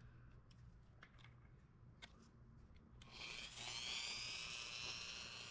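A few faint clicks of handling, then about three seconds in a small high-speed rotary tool spins up and runs with a steady high whine.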